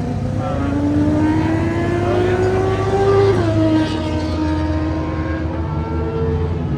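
A vehicle engine accelerating, its pitch climbing steadily for about three seconds, then dropping suddenly as if shifting up, and holding steady after that.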